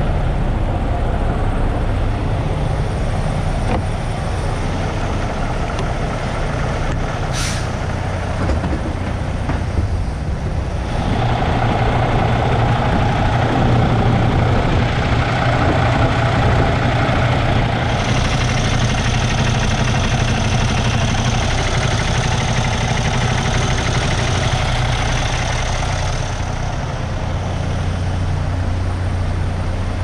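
Semi-truck's diesel engine running, heard from inside the cab, with a steady rush of road noise. A brief sharp hiss comes about seven seconds in, and the engine note grows stronger about eleven seconds in.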